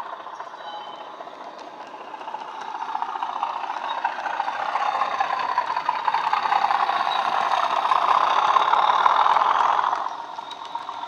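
Bachmann Class 37 model locomotive's DCC sound decoder playing a Class 37 diesel engine sound through its built-in speaker, with some rattle from the model running on the track. The sound grows louder as the locomotive approaches and drops off sharply about ten seconds in as it passes.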